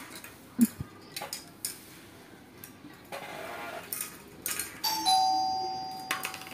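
Light sharp clicks and taps of plastic spoons and balls on a glass tabletop, the sharpest under a second in. About five seconds in, a two-note chime sound effect sets in and fades away.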